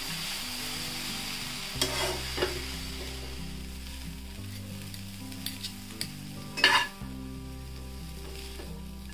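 Noodles being stirred and tossed with metal spatulas in a non-stick kadai over a gas flame: a light sizzle with spatula clacks and scrapes against the pan, the loudest about two-thirds of the way through.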